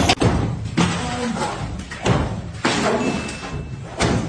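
A series of four heavy thuds or slams, each sudden and short, over background voices.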